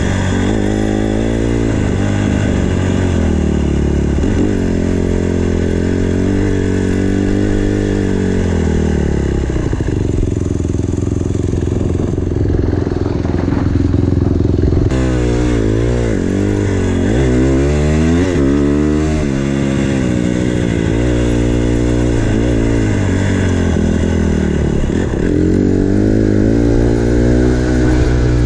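Four-stroke single-cylinder dirt bike engine running under way, its pitch rising and falling again and again as the throttle opens and closes, with a steadier stretch about halfway through.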